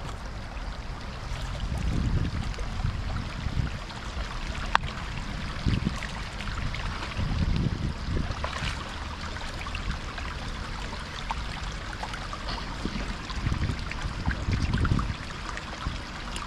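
Shallow river flowing steadily, with low gusty rumbles now and then and a sharp click about five seconds in.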